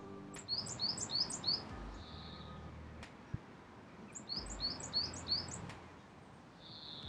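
A small songbird singing two short phrases, each a quick run of about five or six high notes sliding downward, about four seconds apart.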